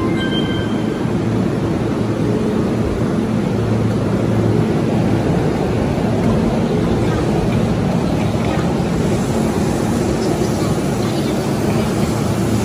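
Busy station platform ambience: a steady low rumble from an electric commuter train standing at the platform, mixed with passengers moving on and off and footsteps. Brief high tones sound right at the start.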